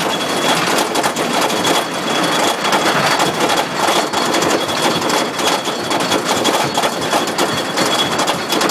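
Wheels of the Colossus wooden roller coaster train clattering along the track at speed, heard from a seat on the train: a dense, continuous rattle of rapid irregular clicks with a thin steady high whine over it.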